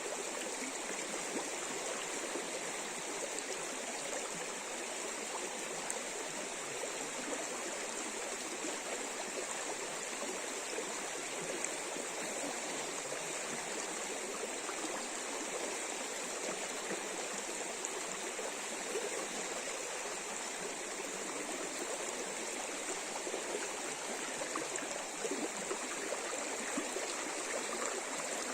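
A forest river running over shallow riffles: a steady rush of flowing water with small gurgles, even in level throughout.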